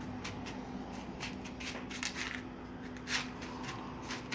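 Hands spreading soaked, drained grain around a disposable aluminium foil pan: an irregular patter of small rustles and clicks as the kernels shift against each other and the foil, with a slightly louder one about three seconds in.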